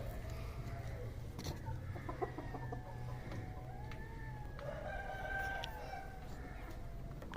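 Chickens on a farm, with a rooster crowing: long drawn-out calls, the clearest one a little past the middle, amid lighter clucking.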